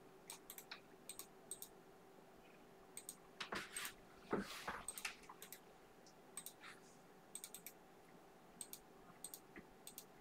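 Faint, sparse light clicks, often two or three in quick succession, with a few louder clicks and knocks a few seconds in, over a faint steady hum.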